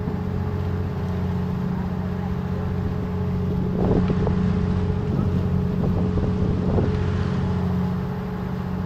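Engine of a motorized outrigger boat running steadily, a constant low drone that does not change in speed.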